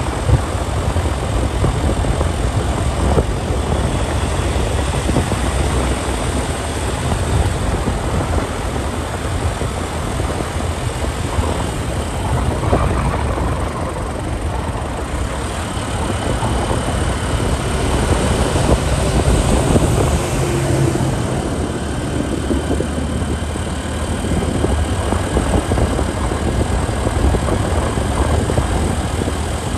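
Riding on a motorcycle in traffic: the engine running under a steady rush of road and wind noise, with no breaks.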